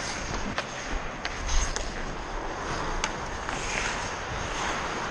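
Hockey skates scraping and carving across the ice in a steady hiss, with a few sharp clacks of sticks and puck.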